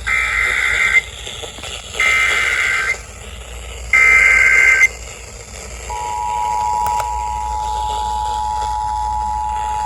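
Emergency Alert System tones on an FM radio broadcast: three one-second bursts of shrill, warbling SAME header data, about a second apart. About six seconds in, the steady two-tone EAS attention signal starts, announcing a National Weather Service severe thunderstorm warning.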